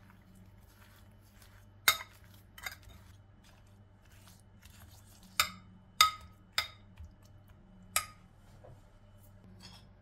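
Metal spoon stirring sugared lemon slices in a glass dish, knocking against the glass in sharp, irregular clinks with a short ring, most of them in the second half.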